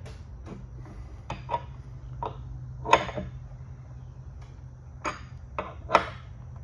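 Metal woodworking clamps clinking and knocking as they are handled and set into place along a glued-up tabletop. There are about eight short, sharp strikes at uneven intervals, the loudest about three seconds in, over a steady low hum.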